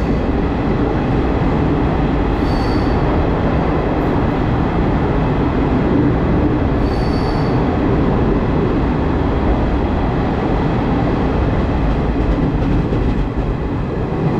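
Passenger train running through a rail tunnel: a loud, steady rumble of wheels and carriages, with two brief high squeals about three and seven seconds in. The rumble eases a little near the end as the train comes out of the tunnel.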